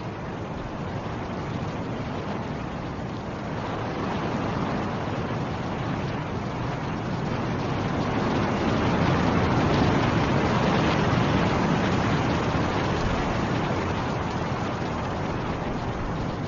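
Snowstorm wind blowing in a steady rush that swells into a stronger gust about halfway through, then eases a little.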